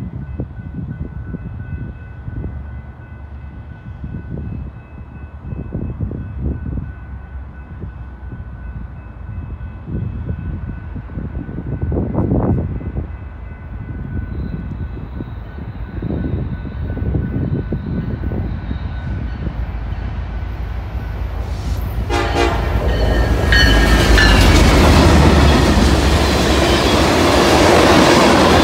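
Freight train approaching and passing close by, led by an EMD GP38-2 diesel: a faint, steady horn-like tone in the first half over a low rumble, the locomotive going past about 22 seconds in, then loud, steady clatter of freight cars rolling over the rails.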